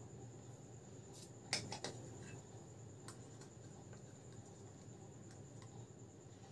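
A few light clicks and taps of plastic, the sharpest cluster about a second and a half in, as an LED bulb is handled and a small screwdriver is worked at the seam between its plastic dome and base to pry it open.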